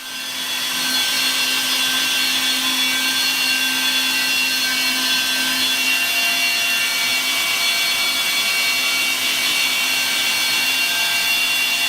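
A wet/dry vacuum cleaner running, sucking up leaked water off a kitchen floor. It is a steady motor whine and hiss that comes up to full loudness in about the first second.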